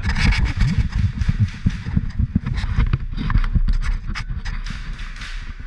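Close handling and movement noise from an airsoft player's gear against the camera microphone: a dense run of dull thumps with sharp clicks and rattles.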